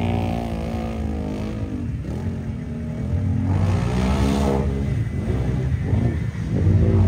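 Small-tire ATV engine revving hard as it churns through a deep mud hole, the revs rising and falling over and over. It climbs sharply about halfway through and again near the end.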